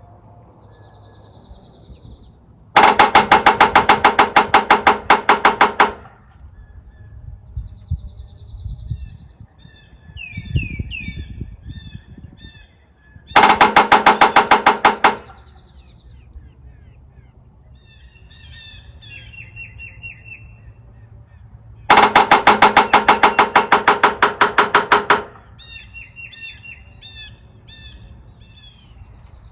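Woodpecker drumming on a metal rain gutter: three long, rapid rolls of strikes, each lasting a few seconds and ringing off the metal. Between the rolls, other birds chirp and call.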